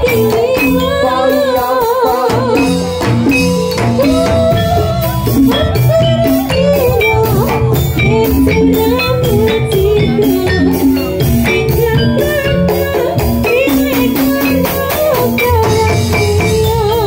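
Live jathilan gamelan music: a singer's voice wavering in pitch over drums and struck metal percussion keeping a steady beat.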